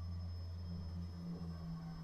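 Kubota BX compact diesel tractor running, heard as a low steady drone through a security camera's microphone; the drone turns unsteady about a second in.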